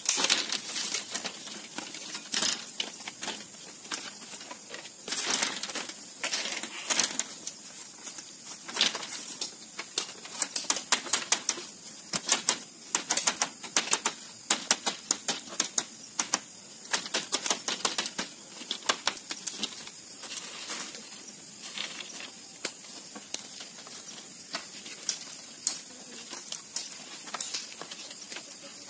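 Split bamboo strips clacking and rattling against each other as they are handled and woven into a wall panel: irregular runs of sharp clicks and taps, busiest around the middle.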